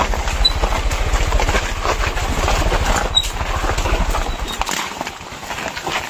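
Motorcycle engine running at low speed, a steady low thrum that drops away about three-quarters of the way through, with footsteps and stones crunching on a rough, stony dirt track.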